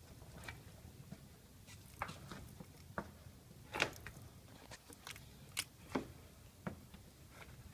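Faint, irregular light clicks and taps, about a dozen, over a low rumble.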